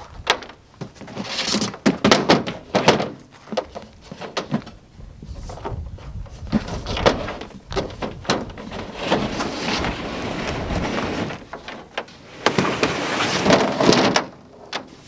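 Plastic storage tub dragged out by its rope and slid over a ribbed plastic truck bed liner, with scraping stretches and scattered knocks and clunks of the plastic tub and its lid.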